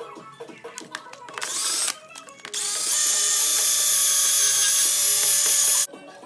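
Electric power tool, drill-like, whirring during engine repair work: a short run that rises in pitch about a second in, then a longer steady run of about three seconds that cuts off suddenly. Clicks and knocks of tool work come before it.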